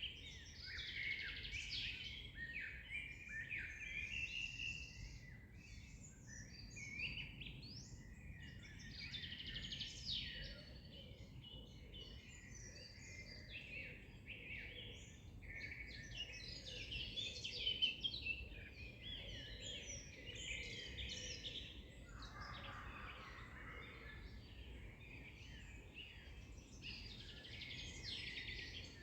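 A chorus of many songbirds singing together, with quick overlapping chirps and trills, over a faint steady background hum.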